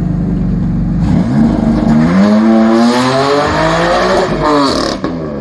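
BMW M car's engine accelerating hard from idle: a steady idle, then an engine note that climbs steadily for about three and a half seconds before dropping off abruptly near the end.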